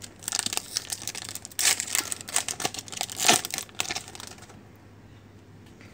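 Shiny foil wrapper of a Topps Premier Gold 2017-18 trading card pack being torn open and crinkled by hand, with a run of sharp crackles that stops about four and a half seconds in.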